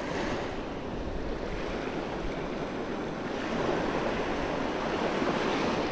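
Small surf waves washing over sandy shallows, swelling a little louder about halfway through.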